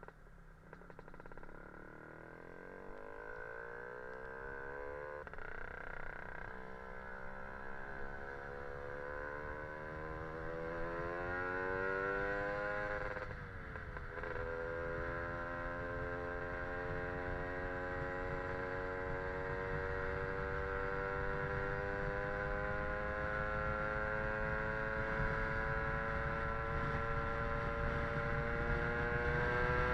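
Lambretta scooter with a Casa Performance SSR265 two-stroke engine accelerating away, its revs climbing steadily and getting louder. The pitch drops sharply at a gear change about halfway through, then rises slowly again in the next gear.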